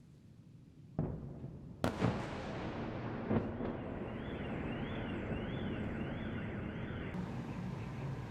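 Explosions from an air strike: a dull boom about a second in, a sharp, loud blast a moment later and another at about three and a half seconds, each trailing off into a rumble. From about four seconds an alarm wails quickly up and down, about one and a half sweeps a second, until it cuts out near seven seconds.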